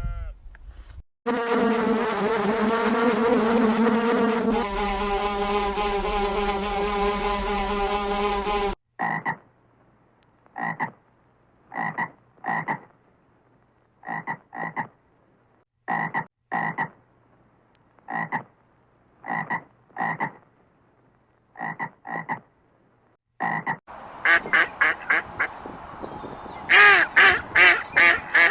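A sequence of animal calls. First comes a long buzzy call of about seven seconds, then short single calls repeated about once a second, and near the end a fast run of sharp calls.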